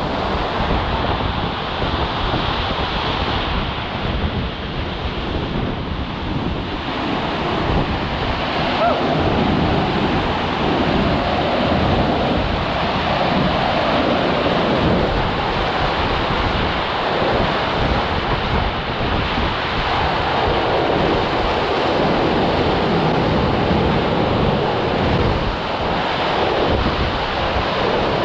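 Steady, loud rush of water with wind buffeting the microphone.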